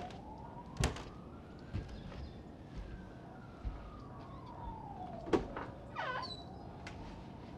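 Faint distant siren sounding one slow rise and fall in pitch, over the low hush of a woodland field recording. Two sharp single knocks come about a second in and about five seconds in, the louder one later.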